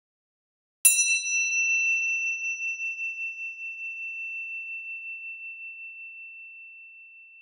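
A high metal chime struck once about a second in, ringing out with a clear tone and a slow, wavering fade.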